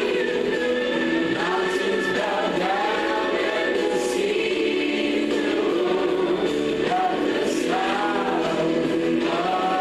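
A choir singing a gospel song with accompaniment, steady and continuous.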